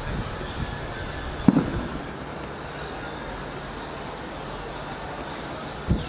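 Steady outdoor background rumble, like distant city traffic, with faint high chirps from a large flock of small birds overhead. A single low thump about one and a half seconds in is the loudest sound.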